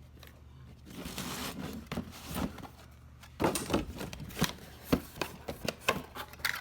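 A cardboard box and its packaging being opened and handled: rustling and scraping, then a run of sharp crinkles and clicks from about halfway through.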